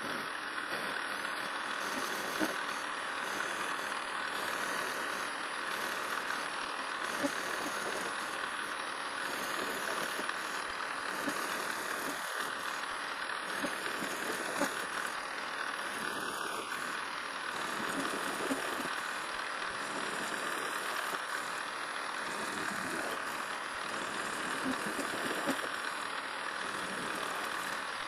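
PM 1127 metal lathe running steadily while the cutting tool turns a conical point on a small metal workpiece, throwing off long stringy chips: a steady whir with scattered faint ticks.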